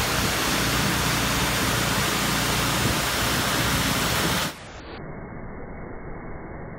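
Pressure washer jet spraying water up against an LED light fixture: a loud, steady spray noise that about four and a half seconds in drops sharply and turns muffled.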